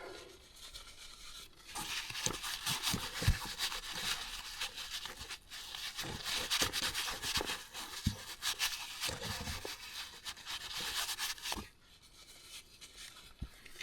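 Scratchy rubbing and rustling lasting about ten seconds, with a few light knocks mixed in, then stopping.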